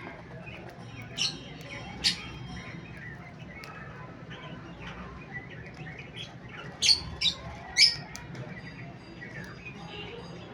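Cockatiels giving short, loud squawks: two about a second apart, then three in quick succession later, over soft scattered chirping and a low steady hum.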